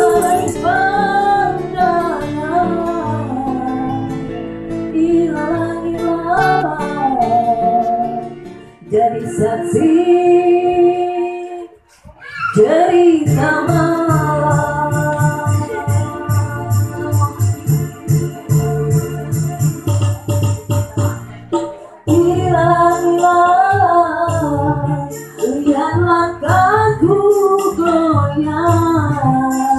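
Music: a woman singing a melody over instrumental backing, breaking off abruptly and resuming a few times.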